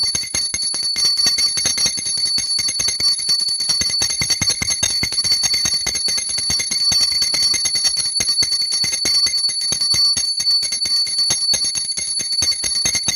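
Brass puja hand bell rung rapidly and without a break during aarti, a continuous metallic ringing with quick repeated strikes.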